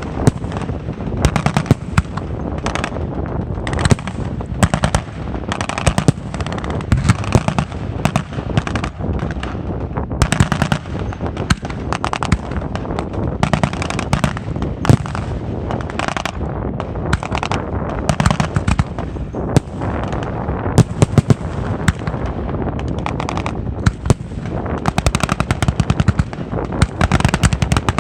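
Fireworks staged as an air-raid reenactment, going off in a dense, rapid string of sharp bangs and crackles that sounds like sustained gunfire, with louder bangs scattered through it.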